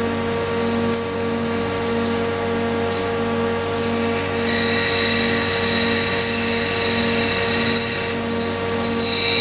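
Mori Seiki SL253BMC CNC lathe running: a steady machine hum with a low tone pulsing about one and a half times a second, and a high whine joining about halfway through.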